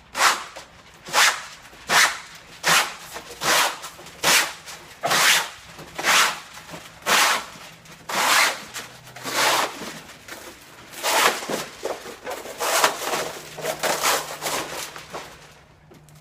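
Hand-pump spray bottle squirted over and over, about fifteen short hissing sprays roughly a second apart, wetting the glass and film for a wet security-film installation.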